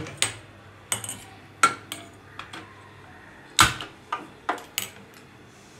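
Stainless-steel pressure cooker pot knocking against the iron pan support of a gas stove as it is set on the burner. It makes a series of sharp metal clinks and knocks at irregular intervals, the loudest about three and a half seconds in.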